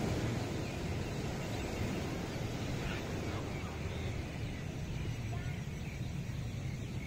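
Sea surf breaking and washing up the beach, a steady rushing noise, with low wind rumble on the microphone.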